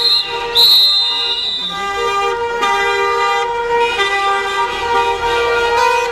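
Many car horns honking at once in a slow car parade celebration, held and overlapping in several pitches. Two short shrill high toots sound in the first second or two.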